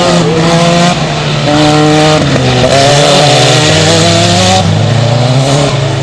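Several autocross buggy engines racing at once, each revving up in pitch and dropping sharply at gear changes about every one to two seconds.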